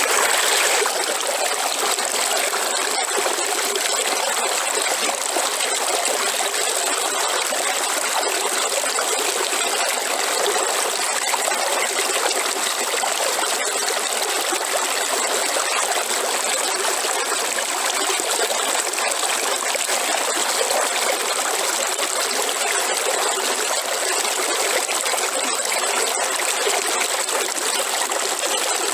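River water flowing: a steady, continuous rush of running water.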